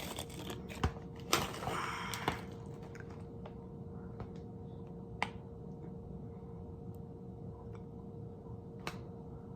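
Close-miked ASMR eating sounds: a brief crinkling crunch a little over a second in, then scattered small clicks and mouth sounds, over a faint steady hum.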